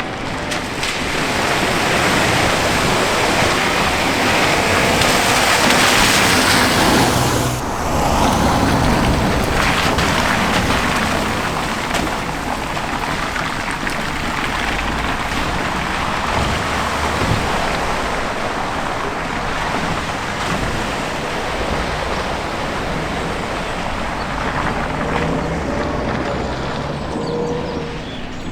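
Vehicles driving through a deep, flooded ford: water splashing and surging against them over engine noise, loudest in the first several seconds, with the flowing water running steadily afterwards.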